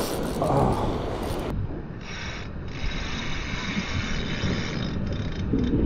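A Daiwa Luvias Airity LT 2500 spinning reel being cranked, with a rough rubbing rasp, while a fish pulls on the line. Steady wind noise and surf wash run underneath.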